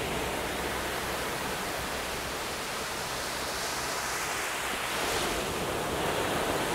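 Small sea waves breaking and washing up a sandy beach: a steady hiss of surf that swells a little about four to five seconds in.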